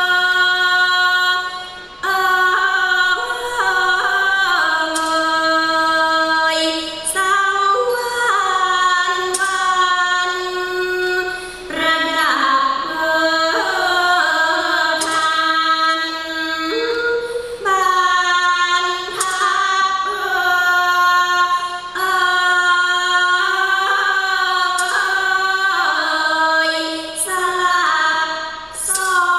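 A woman singing a Thai classical song in long, drawn-out phrases, each held note sliding and wavering between pitches, with occasional sharp percussion strokes underneath.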